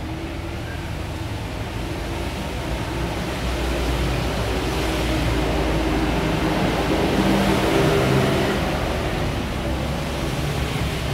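Hot-air rework station blowing steadily at a low air setting, with a low fan hum under the rush of air, as it heats a replacement micro-USB charging port to solder it onto a phone's circuit board. The air noise swells in the middle and eases toward the end.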